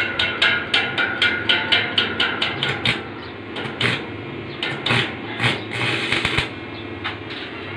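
Rapid metallic tapping on a stainless steel gate, about four strikes a second for some three seconds, with the panel ringing under it. Then short, irregular bursts of stick-welding arc crackle as the welder strikes the arc.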